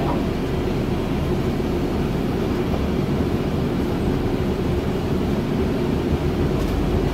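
Scania Citywide city bus running along, heard from inside the passenger cabin: a steady engine and road rumble with a constant low hum.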